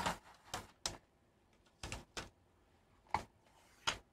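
Protective plastic film being peeled off a motherboard: about seven short, scratchy rips, irregularly spaced, with quiet gaps between.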